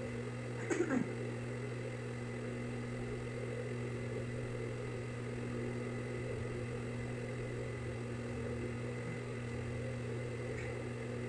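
Steady electric motor hum at an even pitch, with a brief clatter about a second in.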